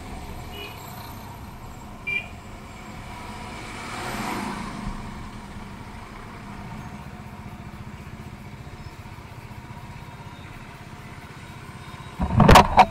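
Motorcycle engine running steadily on the move, with another vehicle swelling past about four seconds in and a loud thump near the end.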